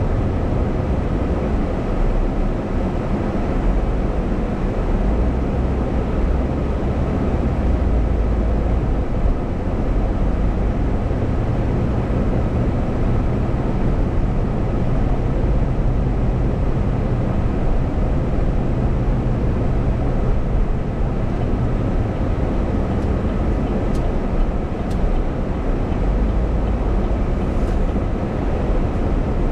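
Steady low road and engine noise of a car driving, heard from inside the cabin, with a couple of faint clicks near the end as it pulls in.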